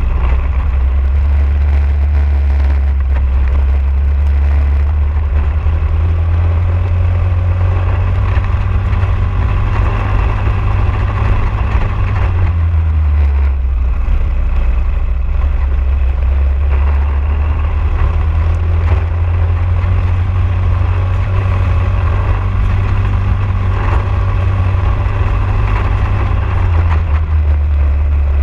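Briggs & Stratton LO206 single-cylinder four-stroke kart engine running hard, heard from on board the kart. The engine note drops about halfway through and again near the end as the kart slows for corners, then climbs back.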